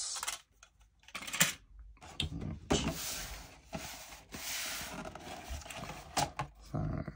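Small hard model pieces and bases clicking and knocking together as they are handled, with a rustle of packaging for a couple of seconds in the middle.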